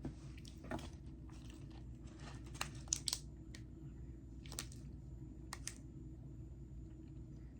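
Scattered crinkles and crunches from handling and eating a packaged snack, with the sharpest crackles about three seconds in.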